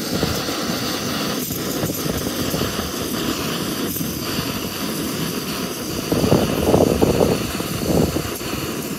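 Wind buffeting the microphone, a steady rush that gusts harder for a couple of seconds about six seconds in.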